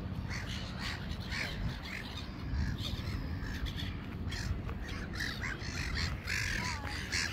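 Gulls calling repeatedly in short, harsh cries, over a steady low rumble.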